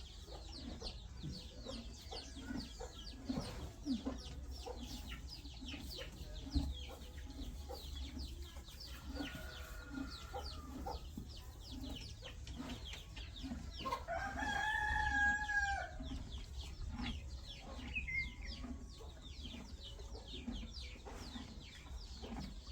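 A rooster crows once, a strong call of about two seconds a little past the middle, over chickens clucking and small birds chirping.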